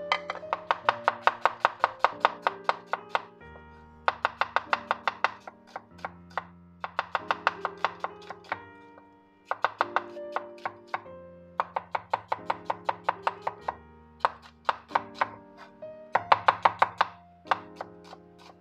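Butcher knife chopping onions on a wooden cutting board: quick runs of knife strokes, about five a second, in bursts of one to three seconds with short pauses between, over background piano music.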